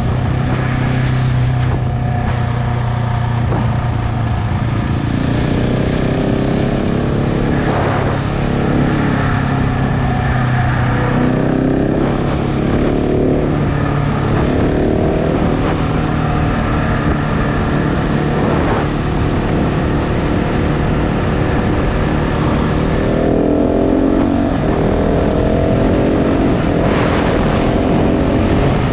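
KTM 690 Enduro R's single-cylinder engine running under way. Its revs rise in pitch several times as the bike accelerates, dropping back between rises.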